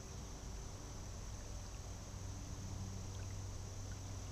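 Faint, steady riverside ambience with a low hum and a thin, high, steady whine, and no distinct events.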